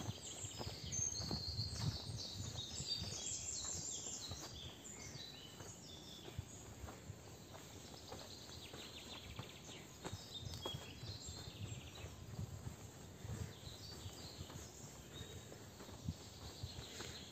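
Several songbirds singing with quick high chirps and trills, busiest in the first few seconds, over soft footsteps on a path.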